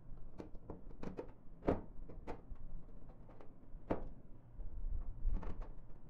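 Sheet-metal covering hood being fitted onto a thresher's inlet: scattered light knocks and taps of metal panel against the steel body, the two loudest about a second and a half and four seconds in.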